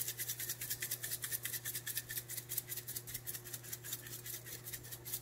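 Chili flakes being ground from a hand-twisted spice grinder: a fast, even run of dry clicks, several a second.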